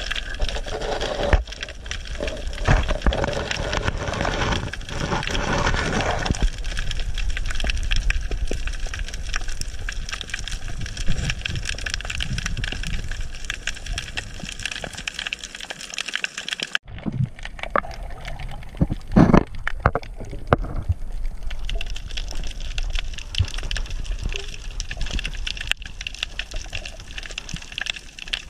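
Underwater ambience: a steady hiss scattered with small clicks and knocks. The sound changes abruptly about 17 seconds in, followed by a few louder knocks.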